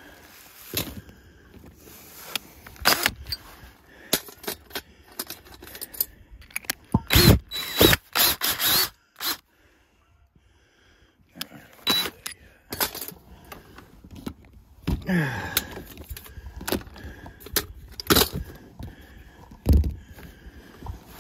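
A string of irregular clicks, knocks and rattles, louder and denser around the middle, with a short near-silent break about ten seconds in.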